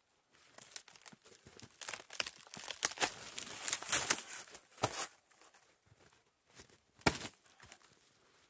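Resinous fatwood splintering and tearing as pieces are wrenched off a weathered, decayed snag: a dense run of crackling cracks for a few seconds, then one sharp snap near the end.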